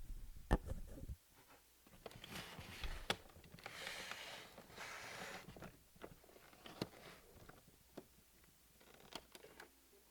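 Faint, scattered clicks and soft rustles of a hand handling a VHS camcorder and pressing its buttons, about half a dozen sharp clicks spread out with quiet in between.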